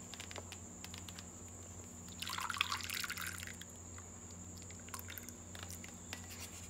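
Condensed-milk gelatin mixture poured from a bowl into a plastic tub onto a set layer of corn jelly. The pour is loudest for about a second, starting about two seconds in, with a few light drips and clicks around it.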